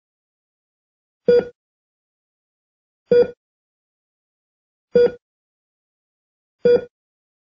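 Hospital heart monitor beeping with the heartbeat: one short beep about every 1.8 seconds, four in all, with silence between them.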